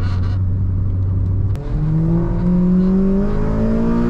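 Honda Civic Type R FD2's K20 four-cylinder engine, pulling steadily, then a click and a brief dip about one and a half seconds in as the gear changes. The engine note comes back higher, as after a downshift, and climbs steadily under acceleration.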